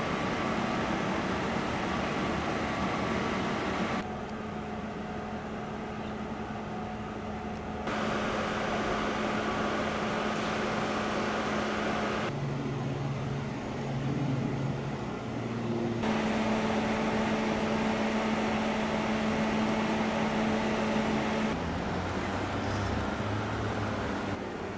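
Steady vehicle engine and traffic hum, with no siren sounding. The sound changes abruptly several times, every few seconds.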